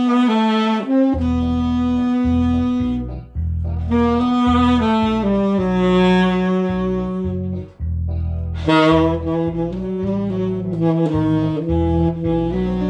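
Tenor saxophone playing a slow ballad melody in long held notes over a backing track with a bass line, with short breaks between phrases about three and eight seconds in.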